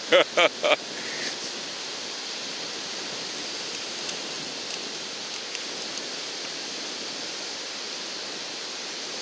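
A man laughing in four quick bursts at the start, then a steady hiss of surf and wind on the open beach.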